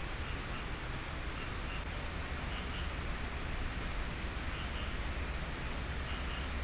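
Tropical forest night ambience: insects keep up a steady high-pitched drone, with short paired chirps every second or so, over a low steady hum.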